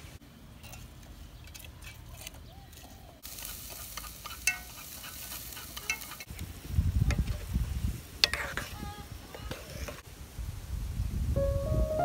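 Kitchen cooking sounds: food sizzling in a pan for a few seconds, and stirring with scattered clicks and knocks of utensils.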